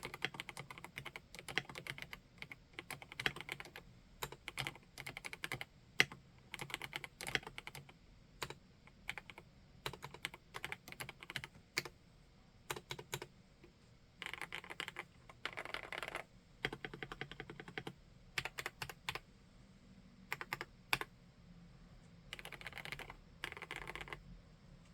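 Typing on a PK x BIOI Command 65 custom 65% mechanical keyboard fitted with SP-Star RedBlue switches: irregular keystrokes with quick bursts of rapid typing in places.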